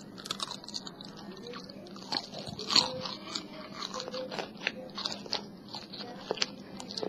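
A person chewing bacon right at the microphone: an irregular run of sharp mouth clicks and bites, the loudest about three seconds in.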